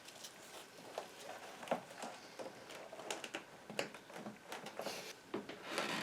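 Irregular small clicks and rustles of hands working a ruffed grouse's wing, trying to snap the humerus, with a denser rustle near the end.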